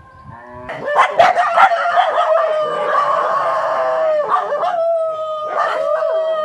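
Street dogs howling: long drawn-out howls held on a steady pitch that waver and bend, with a few sharp barks at about a second in.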